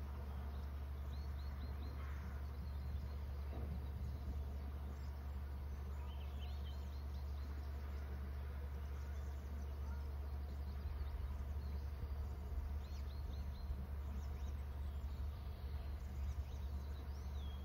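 Steady low hum with faint, high bird chirps in short runs of three to five notes, recurring every few seconds.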